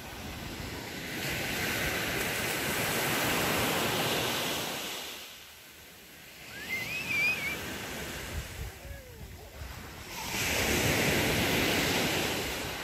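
Sea waves breaking and washing up a pebbly beach, the surf swelling over the first few seconds, easing to a brief lull midway and building again about ten seconds in.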